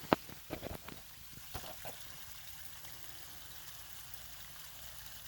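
Water running and trickling down a small waterfall in a steady faint hiss. Several sharp clicks and knocks come in the first two seconds, the loudest just after the start.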